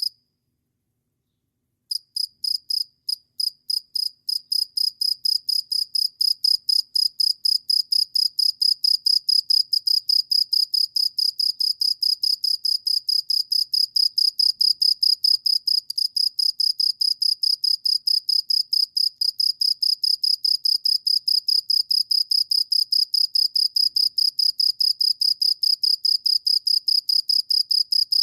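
A cricket calling: a loud, high-pitched chirp repeated several times a second in an even rhythm. After a pause of about two seconds it starts again with spaced chirps, then settles into the steady fast pulse.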